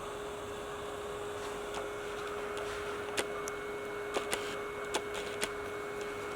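Steady electrical hum and hiss of bench repair equipment, with a few light sharp clicks of small tools handled on the LED module during LED replacement.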